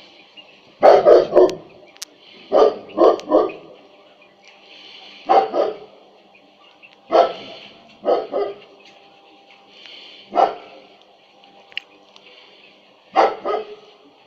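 A dog barking in short bouts of two or three barks, repeated about seven times with pauses between them.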